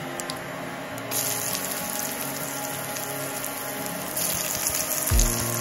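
Hot oil sizzling in a frying pan with cumin seeds, bay leaves and sliced onions. It is a steady hiss that grows louder about a second in and again near four seconds in, over background music whose beat comes in near the end.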